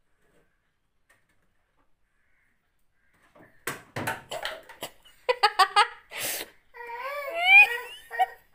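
A toddler's voice: several short repeated cries, then a longer wavering one that rises and falls in pitch. Before it, starting about three seconds in, come a few sharp knocks and rattles.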